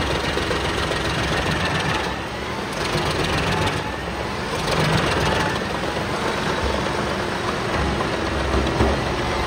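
Noremat Valormax DMC 593 truck-mounted wood chipper running under load, chewing a log fed in by its toothed feed roller: a dense grinding clatter over a steady engine drone. It dips briefly twice, about two and four seconds in.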